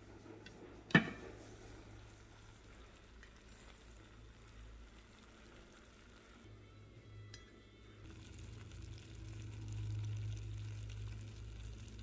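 Hot slow cooker contents simmering faintly, a soft sizzling hiss, with one sharp clink about a second in. A low hum swells in the last few seconds.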